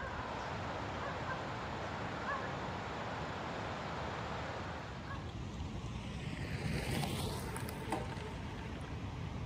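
Steady wind noise on the microphone. About seven seconds in, a bicycle rides past on gravel: a brief swell of tyre noise that fades as it moves away.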